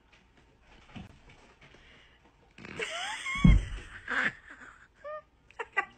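Quiet indoor room tone, then short high vocal cries that rise and fall, with a heavy thump about halfway through, the loudest sound, as the cat lands amid cardboard.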